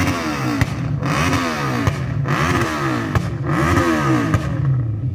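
Motorcycle engine being revved repeatedly, its pitch climbing and falling back about once a second. Near the end it settles to a steadier idle.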